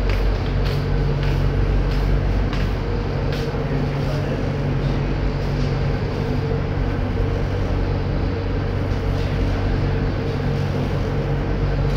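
A ship's engines running steadily, heard inside the wheelhouse as a low drone, with a few faint clicks over it.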